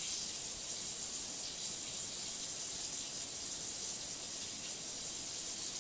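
Kitchen tap running steadily into the sink, an even hiss of water.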